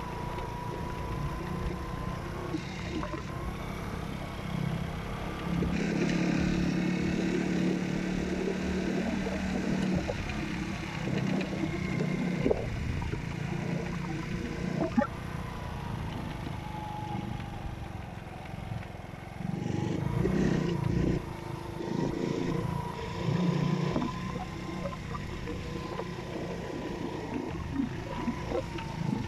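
Small motorcycle engine running while riding over a bumpy dirt track, with a thin steady whine above it. The engine note grows louder and fuller under throttle about six seconds in and again around twenty seconds, and a few sharp knocks come from the rough ground.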